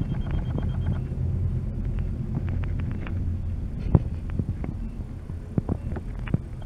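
Steady low rumble of a chairlift ride, the haul rope and chair carrying the vibration up to the microphone. A few light clicks run through it, with one sharper knock about four seconds in.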